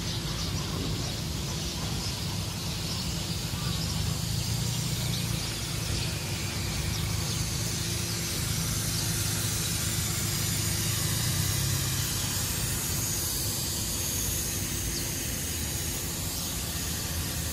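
Steady outdoor background noise: a continuous low rumble of passing road traffic with a soft hiss over it, no single event standing out.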